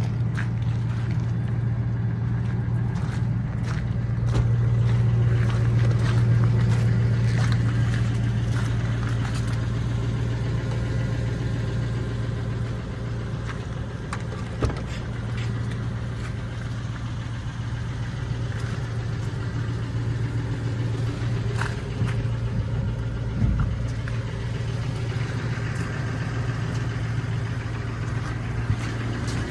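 2006 Ford F-250 Super Duty pickup's engine idling steadily, with a few light knocks over it.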